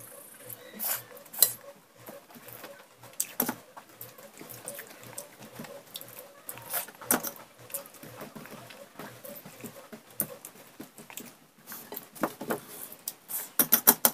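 Eating rice by hand from a stainless steel plate: fingers mixing and scooping the rice, with scattered clinks and scrapes against the steel. The clinks come thickest near the end.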